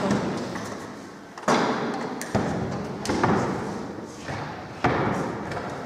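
Wooden studio easel knocking against a door frame as it is carried through a doorway: four hollow thuds, each dying away over about a second.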